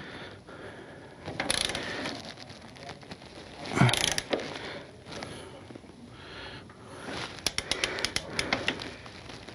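Ratcheting torque wrench clicking in short strokes as the lower rear shock bolt is tightened toward 40 foot-pounds. There is a louder clunk about four seconds in and a quick run of ratchet clicks near the end.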